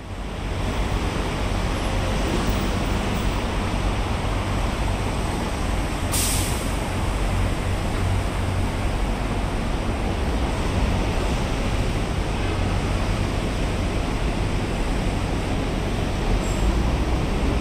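Steady road traffic from a multi-lane city highway junction, cars and diesel buses running past with a deep rumble. A short, sharp air-brake hiss from a bus about six seconds in.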